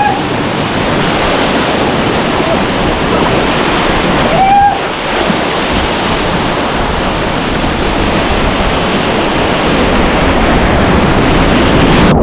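Whitewater rapids rushing loudly and steadily, with a short voice-like call about four and a half seconds in.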